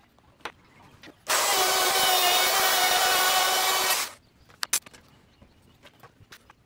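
Corded circular saw cutting through a plywood panel: about three seconds of steady cutting noise with a motor whine, stopping abruptly, followed by a few sharp knocks.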